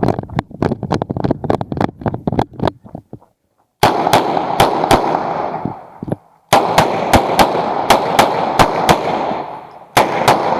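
Uzi Pro 9mm pistol fired in quick strings of single shots, several per second, with short breaks of about half a second to a second between strings.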